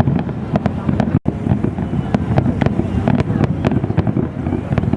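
Fireworks going off: a rapid, irregular run of sharp cracks and bangs over a continuous low rumble. The sound cuts out for an instant about a second in.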